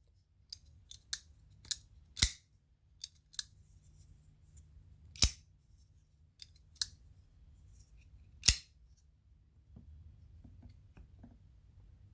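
Asher folding knife with an axis-style lock being flicked open and snapped shut over and over: a string of sharp, irregular metal clicks as the blade locks and releases, the loudest about two, five and eight and a half seconds in.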